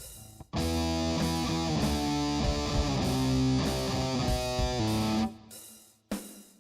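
Electric guitar music: short choppy chords, then a held, ringing riff for about five seconds, breaking off into short stabs again near the end.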